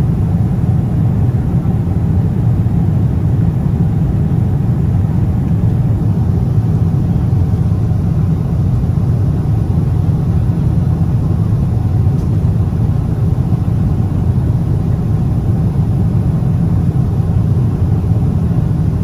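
Steady low rumble of jet airliner cabin noise: engine and airflow drone heard from inside the cabin.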